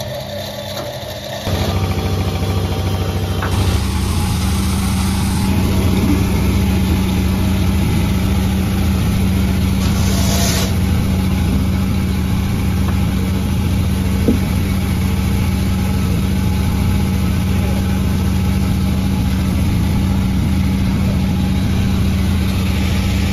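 Panda36 sawmill's engine running steadily with an even low hum, stepping up in level about a second and a half in. A brief hiss comes about ten seconds in.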